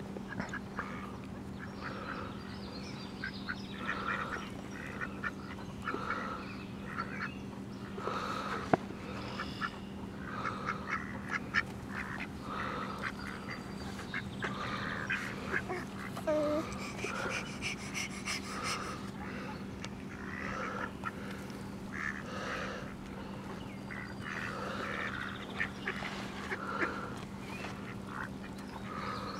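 A group of mallard ducks quacking in many short, irregular calls, over a steady low hum, with one sharp click about nine seconds in.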